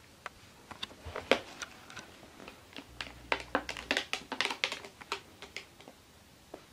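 Thin clear plastic case clicking and tapping in quick, irregular light knocks as a cat paws at it and pushes into it, with one sharper click about a second in.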